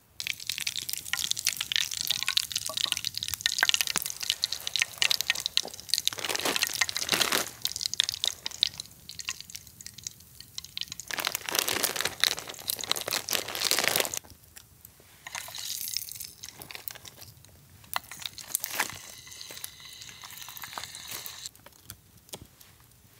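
Liquid pouring and dripping in several bursts, with fine crackling clicks, quieter after about fourteen seconds.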